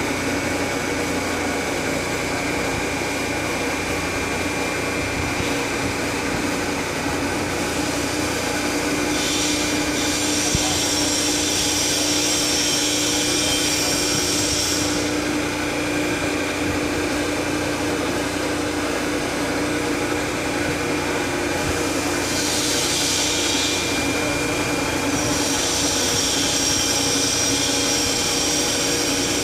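Hydraulic pump motor running steadily while a telescopic cylinder raises a dump bed, with stretches of higher hissing about a third of the way in and again near the end.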